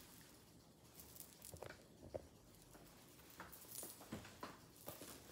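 Faint, scattered light clicks and soft rustles of a leather Coach shoulder bag and its strap being handled and settled on the body, with near silence between them.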